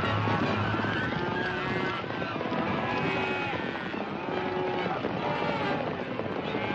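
A herd of cattle on the run: repeated bawling, several arching calls in a row, over a steady rumble of hooves.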